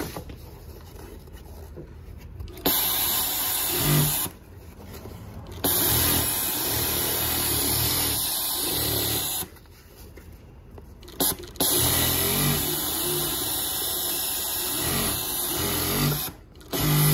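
Kansai Special flat seamer industrial sewing machine running at speed, stitching thick scuba (neoprene) fabric. It sews in three runs of a few seconds each, starting about three seconds in and stopping briefly between runs.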